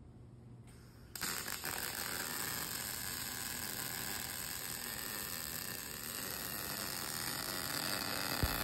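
Miller RMD (modified short-circuit MIG) welding arc running the root pass on a bevelled steel pipe joint. It strikes about a second in and runs as a steady hiss.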